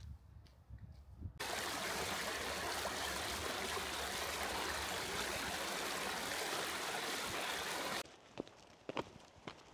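Footsteps on a gravel track, then a small mountain stream running over stones for about six seconds, cutting in and out abruptly, then footsteps again.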